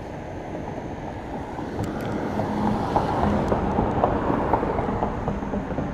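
A car passing on the road close by, its tyre and road noise swelling and then fading.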